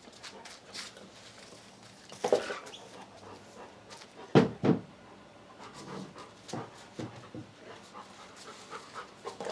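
A dog panting, with scattered small clicks and taps in between and a few louder bursts, two of them close together about four and a half seconds in.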